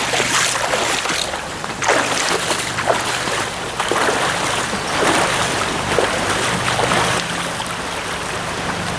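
Shallow stream water rushing and splashing close to the microphone, with irregular louder splashes every second or so.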